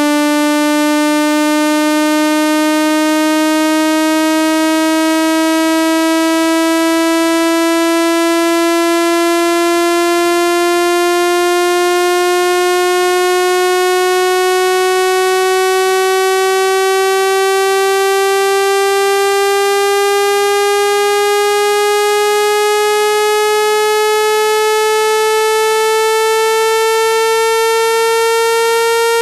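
Synthesized speaker-cleaning tone: a loud, buzzy electronic tone rising slowly and steadily in pitch, a continuous sweep meant to vibrate dust out of a phone speaker's grille.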